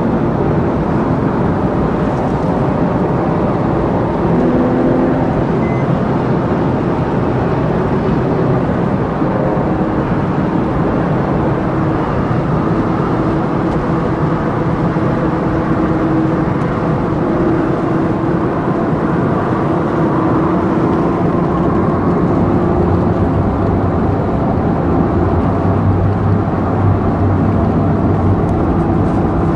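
Engine and road noise inside a Porsche 911 Carrera 4S on the move: its flat-six runs steadily under a haze of tyre and wind noise, the engine note shifting a little now and then.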